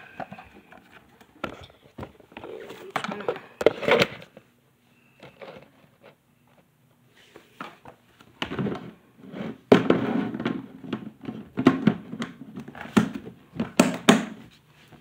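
Irregular knocks, clicks and clattering close to the microphone, in two busy spells with a quieter stretch in the middle.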